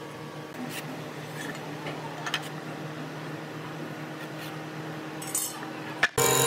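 Light metallic taps and clinks as an aluminium speed square is set down and shifted on hardwood boards, over a steady machine hum. Near the end a loud running woodworking machine with a high whine takes over abruptly.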